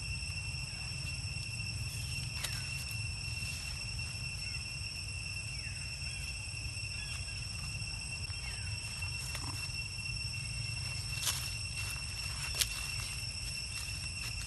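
Steady high-pitched insect chorus over a low rumble, with a few sharp clicks, two of them close together near the end, and some faint short falling chirps.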